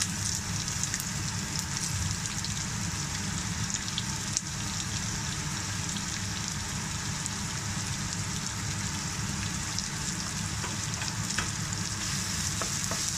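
Chopped onions sizzling steadily as they fry in hot oil in a nonstick pan, with a few light clicks and scrapes of the spatula stirring them.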